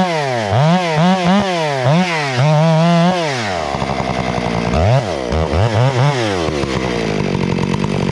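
Two-stroke chainsaw engine revving hard, its pitch swooping up and down over and over. About three and a half seconds in it drops back to a low, rough idle, with two short revs near the middle.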